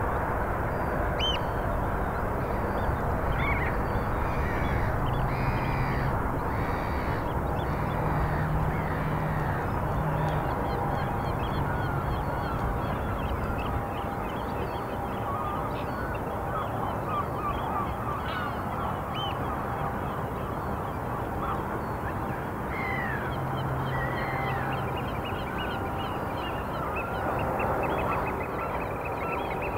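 Waterbirds calling: a run of short honking calls a few seconds in and a couple more later, over a steady outdoor background hiss.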